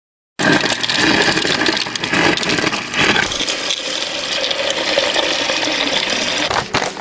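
Water running from a dispenser spout into a plastic blender cup as it fills. The flow starts abruptly about half a second in and breaks off briefly near the end.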